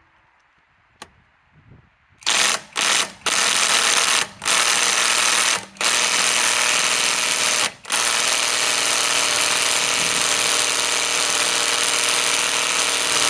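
Hercules HCB84B2 compact cordless impact wrench on speed setting 3, hammering: several short trigger pulls with brief gaps starting about two seconds in, then a long steady run of hammering.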